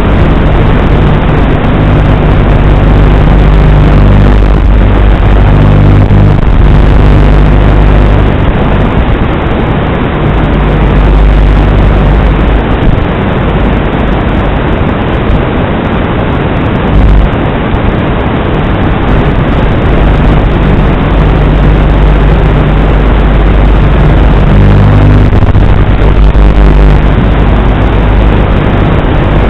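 Strong wind buffeting the microphone: a loud, continuous rumble and roar, with a low hum that comes and goes.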